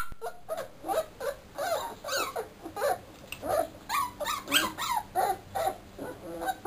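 English bull terrier puppies whining and whimpering. The short calls fall in pitch and come in a quick, overlapping run of about two or three a second.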